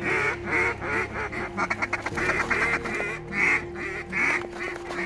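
Waterfowl calling in a busy, fast run of quacks and honks, several calls a second, over a steady low hum.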